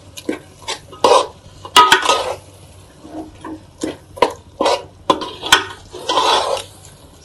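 Slotted metal spoon stirring a thick, wet mint masala paste in a metal pot: irregular scrapes and wet squelches with clinks of the spoon against the pot, one of them ringing briefly about two seconds in.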